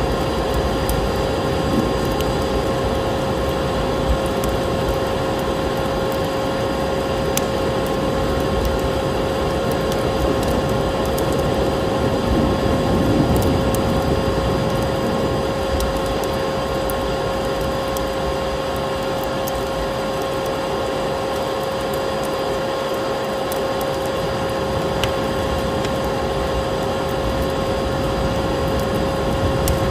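Vacuum cleaner running steadily: a constant motor whine over the rush of air, with faint scattered crackling clicks.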